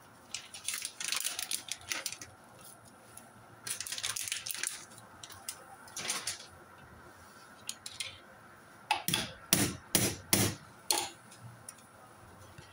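Light rustling and clatter of kitchenware as slivered almonds are scattered into an aluminium cooking pot of layered sweet rice. About nine seconds in comes a quick run of four or five sharp knocks, the loudest sounds here.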